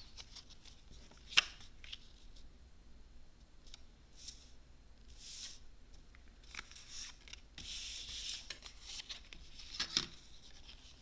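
Cardstock and paper pieces being handled on a tabletop: several short rasping strokes of paper rubbing and sliding, the longest about a second long past the middle, with a sharp tap a little over a second in and a few lighter clicks near the end.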